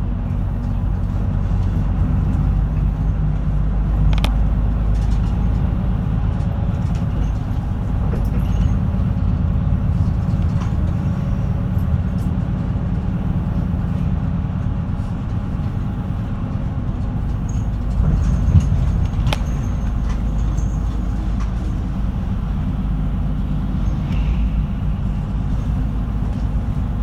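Route bus running along the road, heard from inside the cabin: a steady low engine and road drone, with a few light rattles or knocks.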